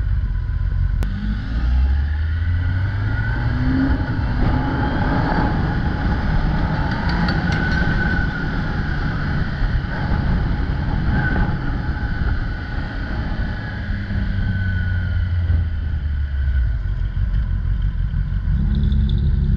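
Kawasaki ZX-10R's inline-four engine pulling hard under full acceleration, its revs climbing in the first few seconds, over a loud rush of wind noise at speed.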